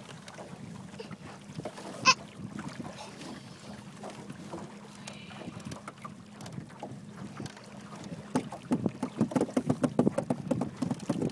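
Small motor boat's outboard motor running with a steady hum, with a single sharp knock about two seconds in. Gusty wind buffets the microphone in the last few seconds.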